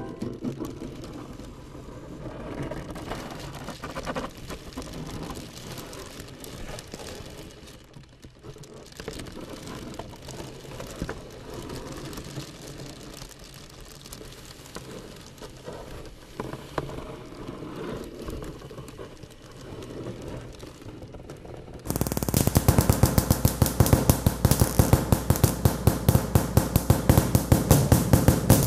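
Small scattered taps, knocks and rustles at a moderate level. Then, about two-thirds of the way in, a sudden much louder stretch of rapid crackling pulses over a steady buzz: an electric mosquito-swatter racket held to a microphone and amplified.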